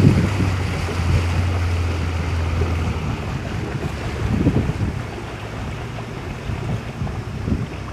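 River longboat's outboard motor running over rushing water, with wind buffeting the microphone; the motor's low steady hum drops away about three seconds in, leaving the rush of water and wind.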